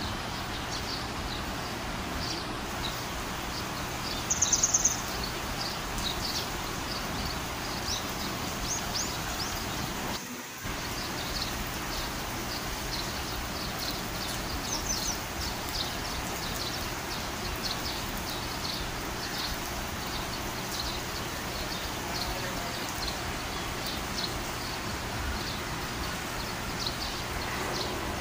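Steady rain falling on a stone-tiled courtyard, with rainwater running across the floor. About four seconds in, a bird gives a brief run of high, shrill chirps.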